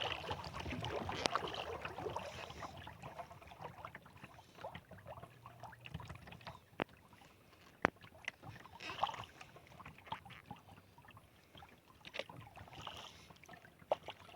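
Kayak paddling: soft splashes and drips of water from the paddle blades every few seconds, with a few sharp knocks, the loudest about seven and eight seconds in.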